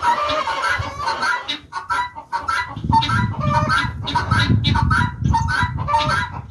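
Guinea fowl calling: a fast run of short, harsh, repeated calls, about two a second, with a low rumbling noise joining about three seconds in.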